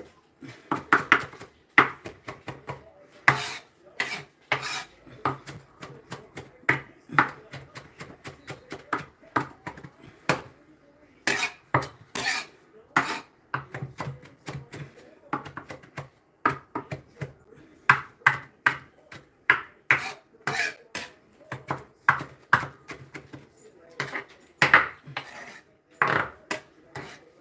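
Large kitchen knife chopping fresh parsley finely on a wooden cutting board: quick, uneven knocks of the blade on the board, a few a second, with a brief pause a little before the middle.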